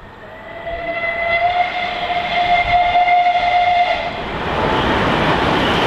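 Bulleid Merchant Navy class steam locomotive 35028 Clan Line sounding a long, urgent steam whistle of several tones held together for about four seconds as it approaches at speed. As the whistle stops, the rushing noise of the locomotive and its coaches running through at about 75 mph swells up.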